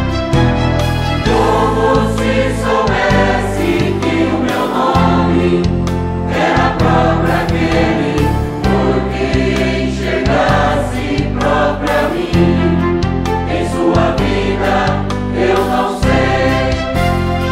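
Mixed choir of men's and women's voices singing a Catholic hymn in Portuguese over keyboard accompaniment with sustained bass notes.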